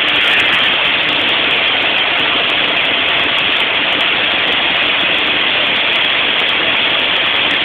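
Steady hiss and hum from TIG welding equipment running without a break.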